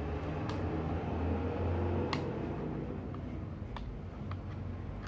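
Handling noise from a wireless keyboard being turned over and held: a low rumble with a few sharp clicks, the clearest about two seconds in.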